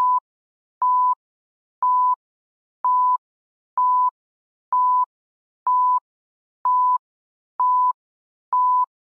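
Electronic countdown beeps: a short, high, single-pitch beep about once a second, ten in all. Each beep starts and stops with a slight click, and each marks one step of a numbered countdown.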